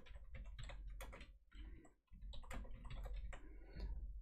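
Faint, irregular clicks of computer keyboard keys typing a few letters.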